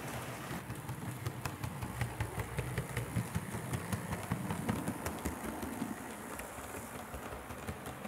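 HO scale model train running on its track: a low rumble with a rapid stream of small clicks from the wheels, swelling and then easing off near the end.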